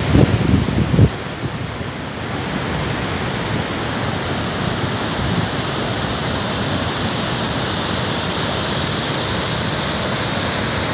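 Steady rushing roar of the Bilate River's flood-swollen water pouring over Famma Falls, a little louder after the first couple of seconds. A couple of low thumps come in the first second.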